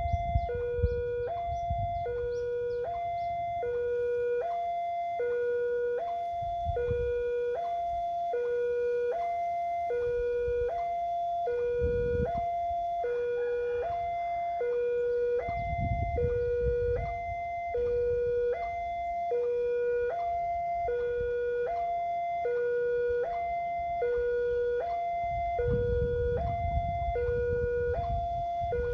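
Railway level-crossing warning alarm sounding a steady two-tone electronic signal, a higher and a lower tone alternating about once a second without a break, warning that a train is approaching.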